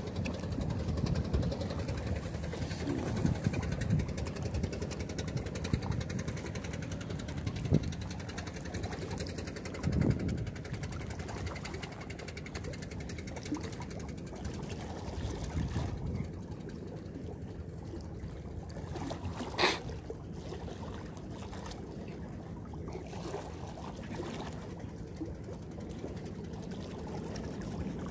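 Seawater lapping and sloshing among concrete breakwater blocks over a steady low rumble, with a sharp click about two-thirds of the way through.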